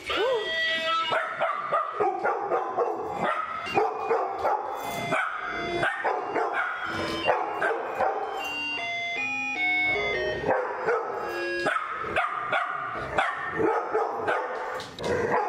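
Golden retrievers barking repeatedly over a Christmas tune with a stepping melody.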